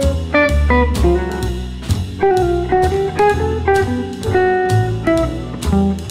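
Background music: an instrumental with guitar, bass and a steady beat about twice a second.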